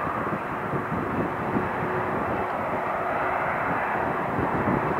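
Boeing 777-200ER airliner's jet engines running as it rolls along the runway: a steady jet noise with a faint steady hum under it.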